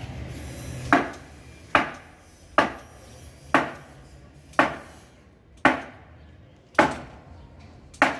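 Repeated blows struck on old timber, eight sharp knocks about a second apart, as wooden tables are knocked apart.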